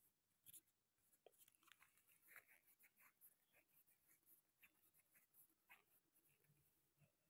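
Near silence, with faint scratchy rustles and small ticks of cloth being handled on a sewing-machine table.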